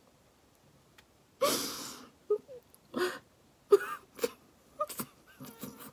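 A woman crying: a long, noisy breath about a second and a half in, then a string of short sobs and whimpers.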